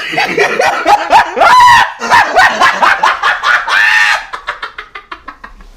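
A dog barking and yelping in loud pitched calls that bend up and down. The calls give way to a quick run of short sounds that fade out.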